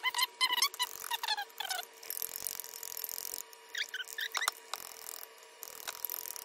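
Chopsticks whisking an egg and mayonnaise batter in a glass bowl, squeaking and scraping against the glass in quick strokes. The strokes come fast for the first two seconds, pause, then come a few more times about four seconds in.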